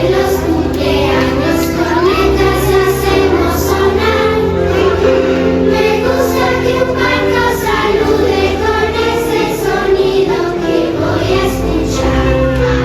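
Group of young children singing a song together over a recorded backing track with a steady bass line.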